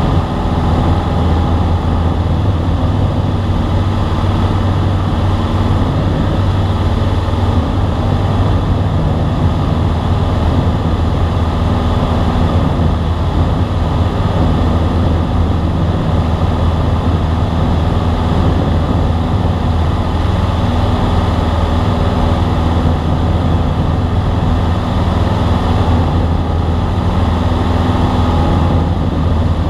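Single-engine light airplane's engine and propeller droning steadily in flight, heard inside the cockpit as a loud, even, low hum.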